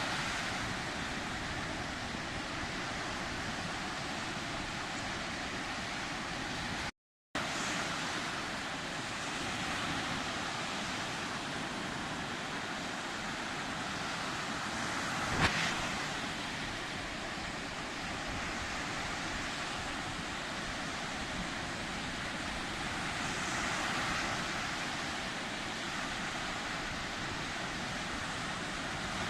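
Sea waves washing ashore: a steady rushing surf that swells and eases slowly. The sound cuts out completely for a split second about a quarter of the way in, and a single sharp click comes about halfway through.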